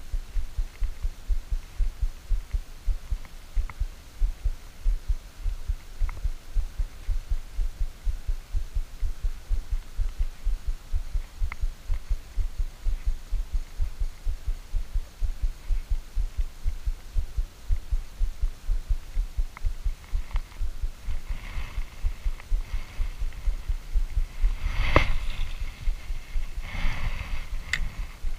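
Low, even thumping, about three beats a second, from a fishing reel being wound to retrieve a lure. Rustling handling noise near the end, with one sharp knock.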